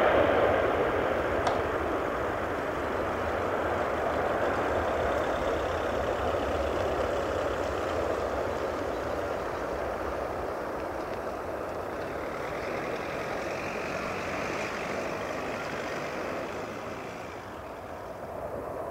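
Boeing 747-400F freighter's jet engines after takeoff, a steady roar slowly fading as the aircraft climbs away.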